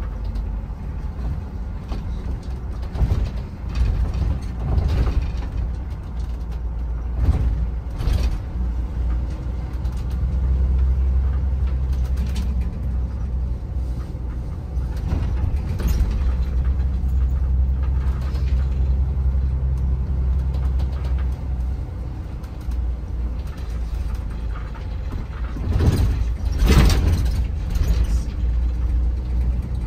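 Shuttle bus in motion: a steady low engine and road rumble, with brief rattles and bumps now and then and a louder burst of noise near the end.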